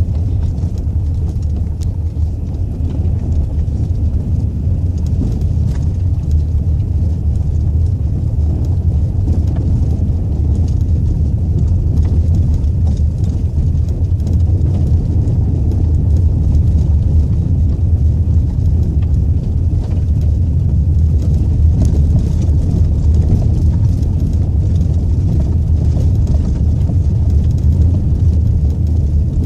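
Vehicle driving over a bumpy gravel dirt road, heard from inside the cab: a steady low rumble of the engine and tyres on gravel, with scattered small clicks and knocks from the jolting.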